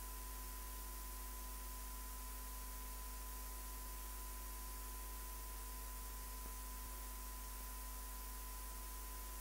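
Steady electrical hum and hiss with a faint steady high whine, unchanging throughout, with no other sound.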